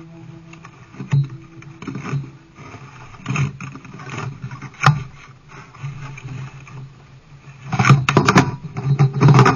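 Canoe on choppy sea: irregular splashes and knocks from paddle strokes and water against the hull, about one a second, growing busier and louder in the last two seconds.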